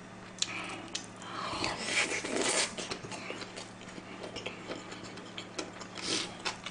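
Close-up eating sounds: a person chewing mouthfuls of shrimp fried rice and soft tofu stew, with a longer drawn-out mouth sound between about one and three seconds in. Small clicks of a metal spoon and ladle against the pans follow.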